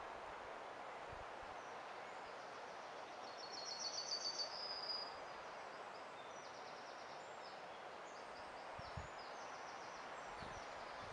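Steady background noise with a small bird singing a rapid high trill about three and a half seconds in, followed later by fainter, scattered high chirps.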